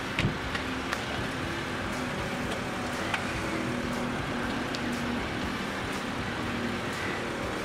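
8th-generation Honda Civic running at low speed as it is driven a short way forward and back on its newly replaced driver-side CV axle: a steady engine hum with a couple of faint clicks.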